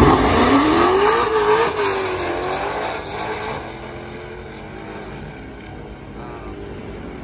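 Hemi V8 drag cars launching off the line and pulling hard down the strip. The engine note rises, breaks at a gear change and rises again, then fades into the distance after about three seconds.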